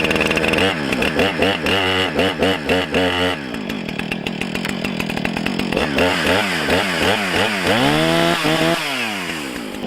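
Brand-new Husqvarna 455 Rancher chainsaw's two-stroke engine on its first run, just started: it runs and is revved in quick repeated blips of the throttle, with steadier running between, and drops back toward idle near the end.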